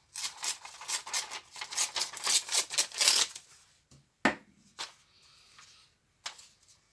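Old printed paper rustling and crinkling under the hands in quick dense strokes, loudest about three seconds in, followed by two sharp taps and a few softer rustles.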